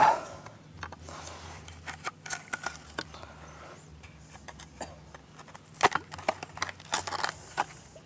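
A coconut being cut open: a run of irregular sharp knocks and taps, with a few louder strikes about six to seven seconds in.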